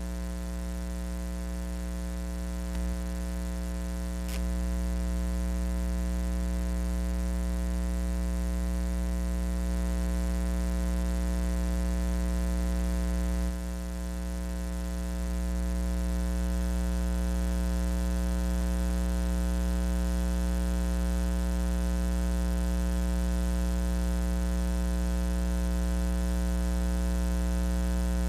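Steady electrical hum with a buzzy edge, one unchanging low drone with many overtones. It steps up slightly in level about four seconds in and again around fifteen seconds.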